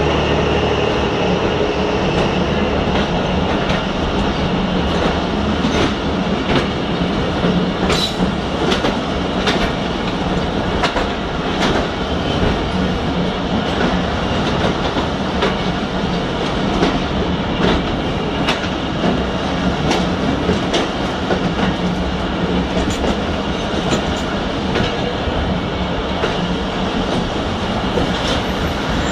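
Passenger train coaches rolling past close alongside: a steady rumble of wheels on the rails, with sharp clicks at irregular intervals from about a third of the way in, as wheels cross rail joints.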